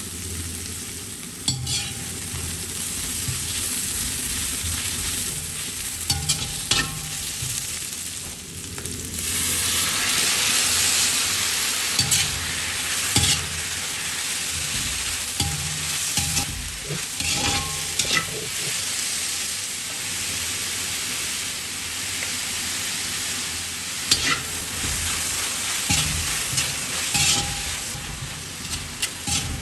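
Onions, green chillies and curry leaves sizzling in hot oil in an iron kadai, stirred with a metal slotted spatula that scrapes and taps against the pan. The sizzle grows louder about nine seconds in.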